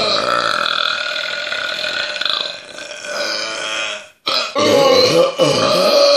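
Long, loud, drawn-out human belches: one long burp that tails off, then after an abrupt break about four seconds in, another long loud burp.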